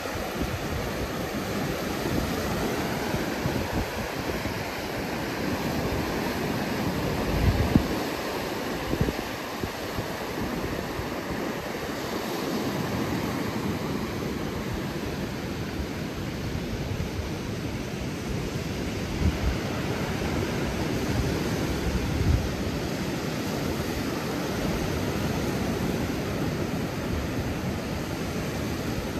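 North Sea surf and strong wind on an open beach, a steady rushing noise, with gusts now and then buffeting the microphone in low thumps.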